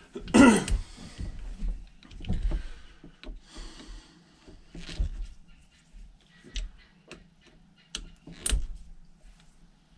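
Scattered clicks and light knocks of hand tools and small carburetor parts being handled on a workbench, with a brief louder sound about half a second in and sharp clicks near the middle and near the end.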